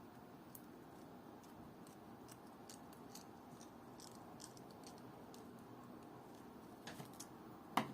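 Faint, irregular light clicks of small metal watchmaking tools handling parts of a watch movement, over a steady low hum, with one sharper click near the end.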